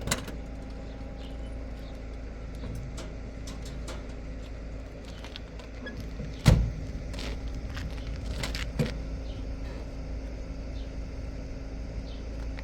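Steady drone of a car running, heard from inside, with a few sharp knocks and rattles; the loudest knock comes about halfway through.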